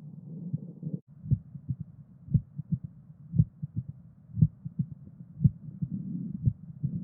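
Recorded abnormal heart sounds. About a second in, one recording with a continuous low whooshing cuts to another: a steady heartbeat of about one beat a second, each beat a sharp low thud followed by one or two softer sounds, over a steady low hum.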